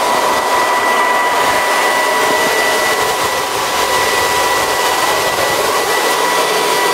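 Tractor running while planting, heard from inside the cab: a steady, even whooshing hiss with a thin, steady high whine over it.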